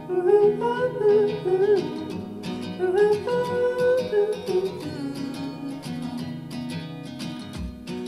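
Song played back through a pair of Audioengine A5+ powered bookshelf speakers and picked up by a recorder in the room: a wordless vocal melody over plucked guitar chords, with low bass beats coming in near the end.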